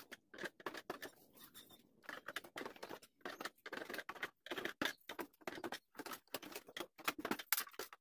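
Irregular clicks, taps and scrapes of hands working at the plastic back cover of a TCL LED TV, loosening it before it is opened.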